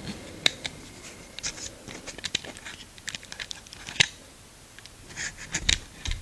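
Small clicks and scrapes of tweezers being slid out of the slot in a Victorinox SwissCard's plastic case and handled, with one sharper click about four seconds in.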